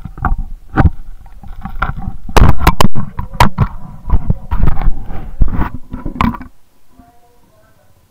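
A rapid, irregular run of loud knocks, bumps and scraping that stops about six and a half seconds in.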